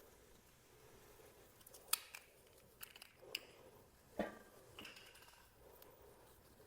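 Faint, scattered clicks and knocks, about half a dozen over a few seconds with the loudest a little after four seconds in, from hands and tools working a motorcycle's rear brake while flushing the brake fluid.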